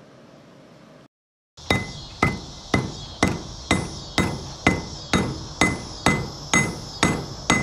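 Hand hammer striking red-hot rebar on a length of railroad rail used as an anvil, about two ringing metal-on-metal blows a second. The blows start after a short gap about a second and a half in.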